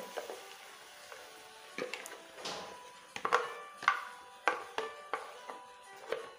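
A spoon knocking and scraping against a blender jar as thick cassava purée is pushed out into a pot, a series of sharp knocks that come more often after about three seconds. Soft background music plays underneath.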